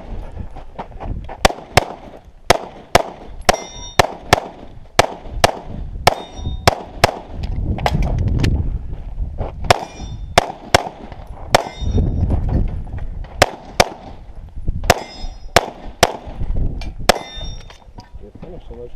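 A rapid string of pistol shots, many in quick pairs, with steel targets ringing after several of the hits. The shooting stops twice for a couple of seconds while the shooter moves between positions.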